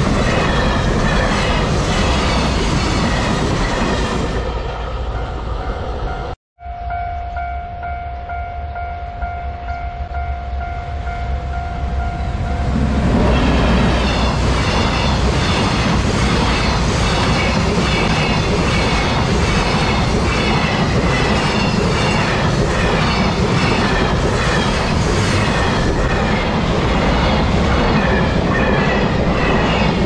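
Container freight train wagons rolling past close by. After an edit, a level-crossing alarm sounds a steady tone. From about 13 s a second container freight train passes loudly, its wheels clacking in a regular rhythm over the rail joints.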